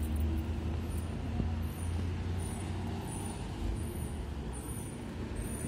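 Street traffic at a city intersection: a steady low rumble of passing vehicles.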